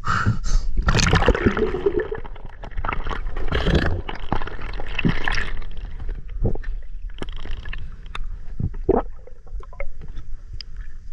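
Water splashing and gurgling at the microphone as a snorkelling spearfisher ducks under the surface, then the muffled underwater sound with scattered sharp clicks and knocks.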